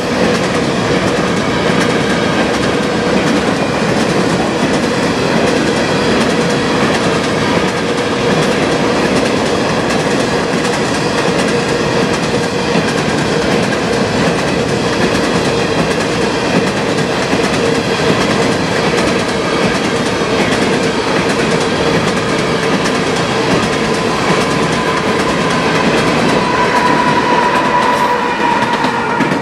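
Empty covered hopper cars of a fast freight train rolling past, with a steady rumble of steel wheels on the rails and a steady tone running through it. Near the end it grows a little louder as the rear distributed-power locomotive, a GE ET44AC diesel, runs by.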